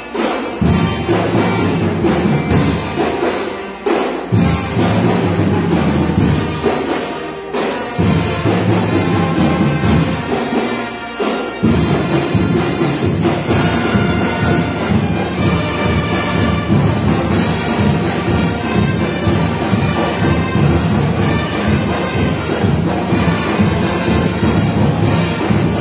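School marching band of saxophones, trumpets and sousaphone with drums playing a piece. The music breaks off briefly a few times in the first half, then runs without a break.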